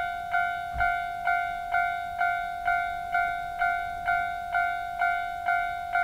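Japanese railway level-crossing warning bell ringing steadily, a two-pitched electronic 'kan-kan' tone struck about twice a second, each strike fading before the next. It is the crossing's standard warning sound, ringing while the lights flash and the barriers are down for an approaching train.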